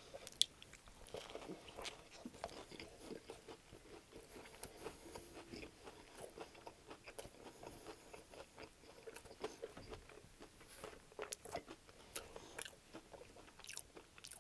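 A bite taken from a chicken ranch wrap about half a second in, then steady close-miked chewing with small, irregular crunches from the breaded chicken, lettuce and crunchy topping.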